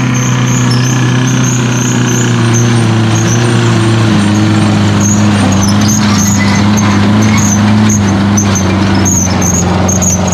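Off-road buggy's engine running hard at steady high revs as it climbs through deep mud, its pitch stepping down once about four seconds in.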